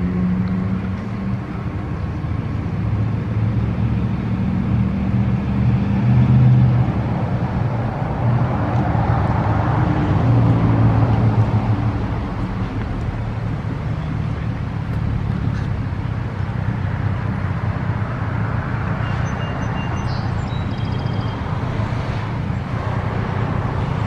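Federal Signal 3T22 outdoor warning siren winding down after its Hi-Lo test, its low growl fading within the first couple of seconds, followed by a steady low rumble.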